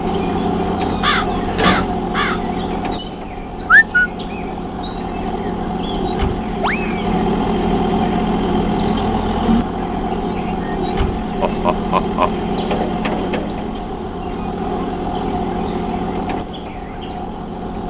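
A steady motor hum, with birds chirping and a few sharp clicks, two of them loud about four seconds in.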